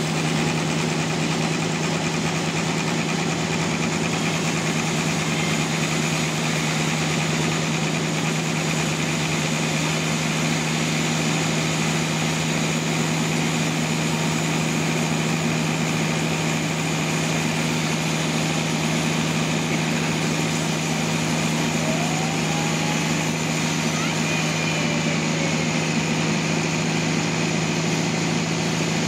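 Sawmill engine running steadily at constant speed, an unchanging mechanical drone.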